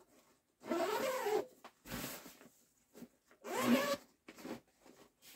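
A cat meowing twice, each call rising and then falling in pitch, with short rustling and zipper sounds between the calls.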